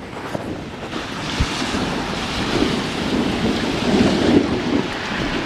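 Thunder rumbling overhead, swelling from about a second in to its loudest about four seconds in, over the hiss of rain.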